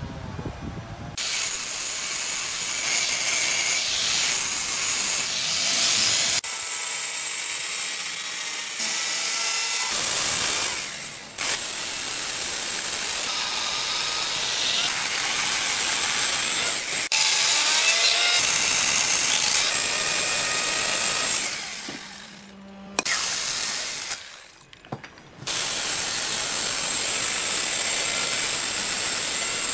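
Electric chainsaw cutting into a hardwood log, starting about a second in. It runs in long stretches, dropping out and starting again several times.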